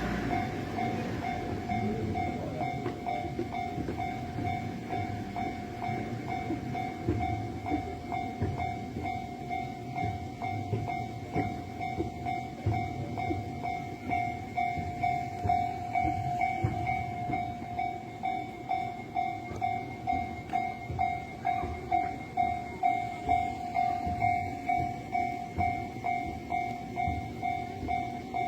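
Japanese railway level-crossing warning bell ringing in a steady repeating pulse, signalling that the crossing is closed, while a train runs past with its wheels clattering and rumbling. The bell's strokes stand out more clearly in the second half.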